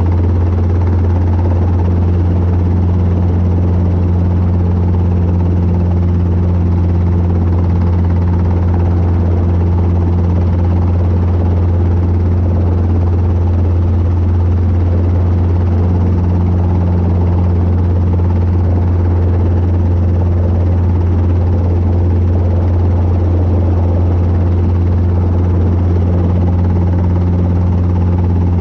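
Robinson R22 helicopter's engine and rotors running with a loud, steady low drone while air-taxiing slowly a few feet above the runway.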